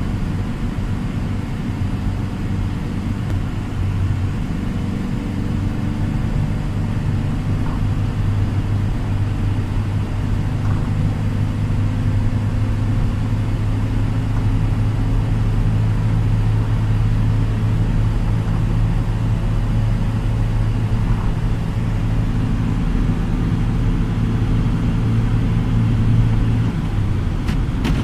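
Inside a car cruising on a highway: a steady low drone of engine and tyre noise, with the hiss of the road.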